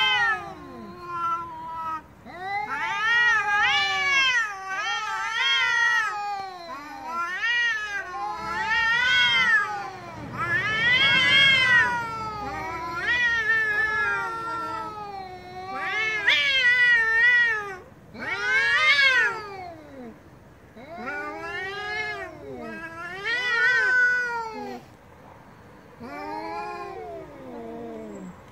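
Two domestic cats in a face-off caterwauling: long, drawn-out yowls that waver up and down in pitch, one after another and sometimes overlapping. It is the aggressive threat-yowling of cats squaring up before a fight.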